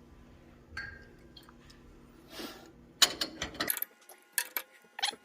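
Glass 8 oz. Coca-Cola bottles clinking and knocking as they are set into the metal bottle channels of a Vendo 80 vending machine, with a loud clunk about three seconds in and a few sharper knocks after it.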